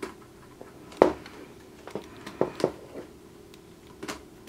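Sharp plastic clicks and knocks from the mobile-device holder of a DJI Phantom 3 remote controller being handled and fitted. There are about seven clicks, the loudest about a second in.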